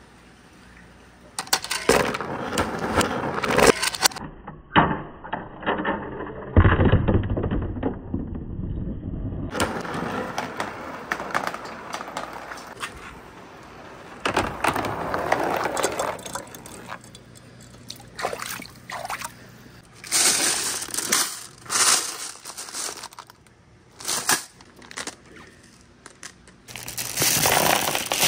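Glass marbles rolling and clattering down a wooden water marble run lined with pegboard, with water splashing along the course and sharp clicks as marbles knock together and against the wood. Near the end a plastic bag rustles and glass marbles clatter as they pour into a plastic colander.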